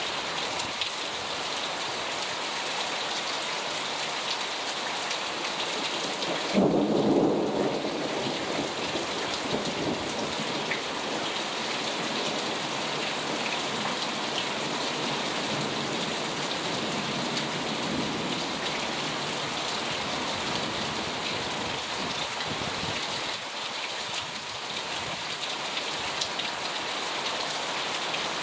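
Heavy rain falling steadily on cars and pavement in a thunderstorm, with a rumble of thunder about six and a half seconds in, the loudest moment, fading out over a couple of seconds.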